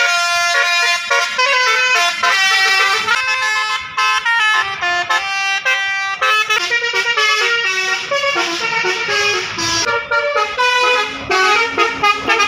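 Basuri telolet horn, a multi-trumpet bus air horn, playing a quick tune of changing notes. It is loud and runs without a break.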